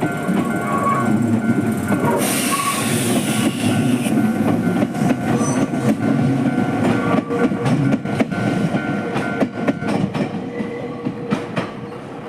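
Atsumi Line electric train passing over a level crossing, its wheels clacking over the rail joints. The crossing's warning signal sounds as a steady tone and cuts off about ten seconds in.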